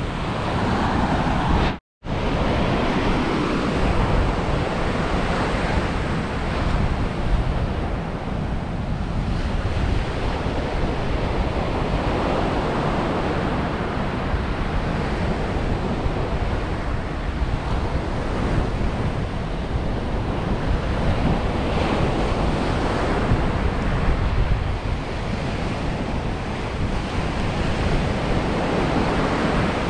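Ocean surf breaking and washing up the sand in a steady rush, with wind buffeting the microphone. The sound drops out completely for an instant about two seconds in.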